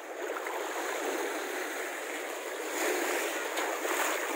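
Small Baltic Sea waves washing up onto a sandy shore: a steady rush of surf that grows louder about three seconds in.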